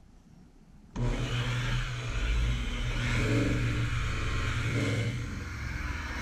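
DeWalt electric polisher running under load, buffing cutting compound into a boat's gel coat with a pad; it starts suddenly about a second in and keeps up a steady motor hum that rises and falls slightly as it is worked over the surface.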